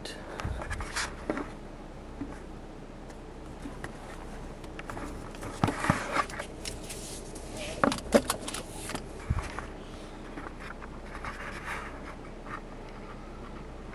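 Handling noise inside a car's cabin: rustling and scraping with scattered clicks, and a few sharper knocks around six and eight seconds in.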